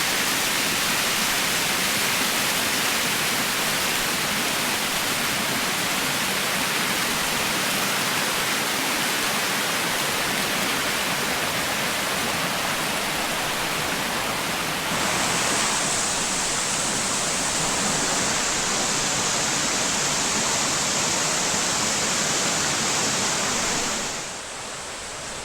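Waterfall pouring, a steady, loud rush of water. It turns brighter and hissier about fifteen seconds in, then drops quieter just before the end.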